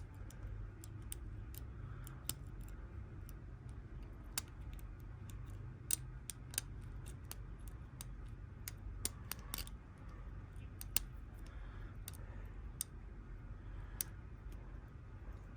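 Small irregular metallic clicks of a lock pick and tension wrench working the pins of a Kwikset pin-tumbler lock cylinder during picking. A low steady hum runs underneath.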